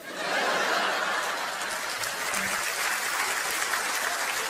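Audience applause, a steady wash of clapping that swells in right as the spoken line ends and holds on evenly.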